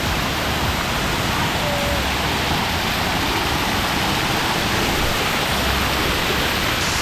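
A waterfall rushing: a loud, steady, even roar of falling water.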